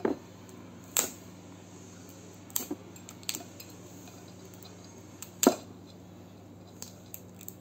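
Boiled crayfish shell being cracked and peeled off the tail by hand: a handful of sharp, separate cracks and clicks, the loudest a little past halfway, with a few small ticks near the end, over a steady low hum.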